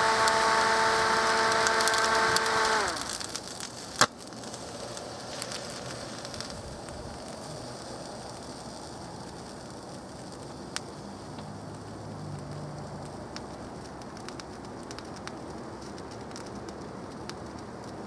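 Microwave oven cooling fan overvolted to about 400 volts, running with a loud high whine over a hiss. About three seconds in, the whine drops in pitch and dies out as the motor fails under the overvoltage. A single sharp pop follows about a second later, then only a faint hiss with scattered crackling ticks.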